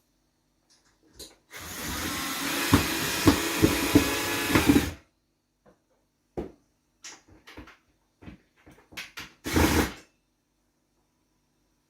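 Power drill running for about three and a half seconds as it drives a screw up into the ceiling, with several sharp knocks along the way. It is followed by scattered clicks and knocks and a half-second burst of the drill near the end.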